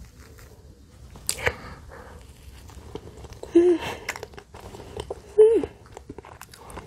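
Close-miked eating sounds of soft cream-filled bread: wet chewing and lip smacks, with a sharp click just over a second in and two short voiced mouth sounds later on.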